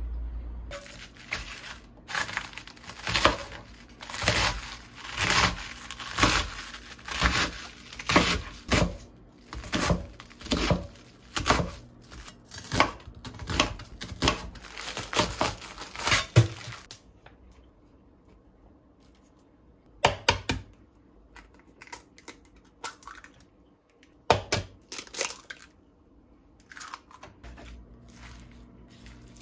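Chef's knife slicing through an onion and striking a plastic cutting mat, about two cuts a second for some sixteen seconds. After that come only a few scattered clicks and knocks.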